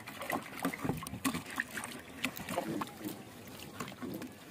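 Plastic parts inside an open evaporative air cooler being handled: irregular knocks, clicks and rattles.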